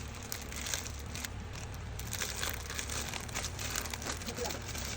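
A packet crinkling and rustling as it is pulled open by hand, a dense run of small crackles.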